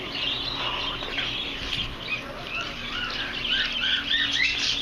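A group of caged birds, cockatiels and small finches among them, chirping and squawking over one another in many short, overlapping calls.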